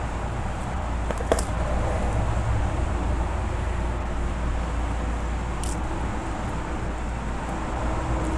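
Steady low background rumble and hiss, with two small sharp clicks, one about a second in and one near the middle.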